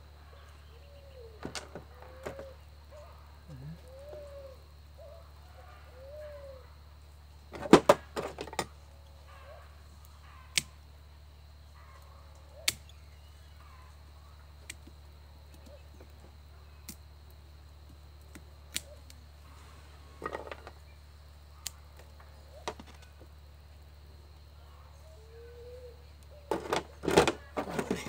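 Sharp snips and clicks of hand cutters (wire-cutting pliers and pruning shears) cutting bonsai wire and thin leucaena branches, a loud cluster of snips about eight seconds in and again near the end, with single fainter clicks in between. A bird coos softly in the background early on and near the end.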